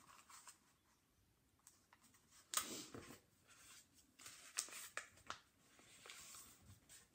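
A sheet of regular white paper rustling and crinkling faintly as it is folded and creased by hand into a paper airplane, with a louder rustle about two and a half seconds in and scattered crinkles after.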